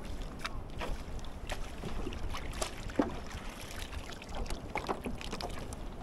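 Small waves lapping and slapping against a kayak hull, with scattered irregular knocks and clicks.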